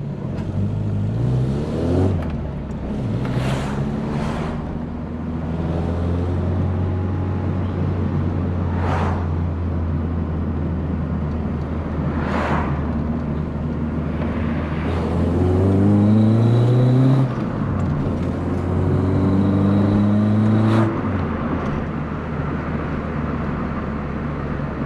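VW Polo coupe's engine pulling through the gears on a drive: the revs climb several times and drop back at each gear change. The engine has freshly had a new head gasket, cam belt and water pump. A few brief whooshes of passing traffic or wind cut in now and then.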